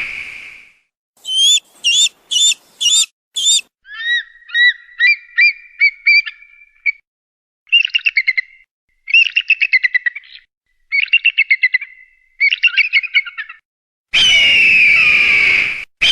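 Hawk calls, a bird-scaring recording: five short high whistled calls, a run of quick upslurred notes, then four bursts of rapid chattering trills. Near the end comes a long, loud, hoarse scream lasting about two seconds.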